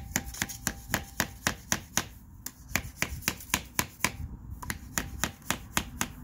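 Light, quick hammer taps on a plastic pipe used as a seal driver, pressing a fork oil seal into a Hawk 250 motorcycle's front fork tube. The taps come about four or five a second, with two brief pauses.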